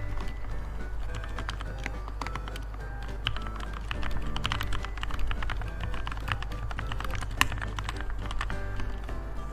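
Typing on a Redragon K617 Fizz 60% mechanical keyboard with linear red switches lubed with Krytox 205g0: a fast, irregular stream of key clicks. Music plays in the background.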